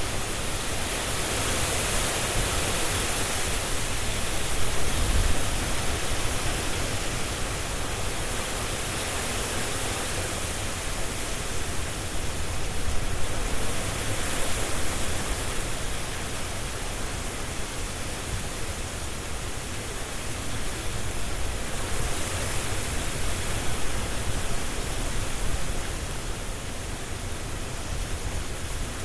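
Strong wind blowing through trees with leaves rustling, a steady rush of noise that swells in gusts and eases every several seconds.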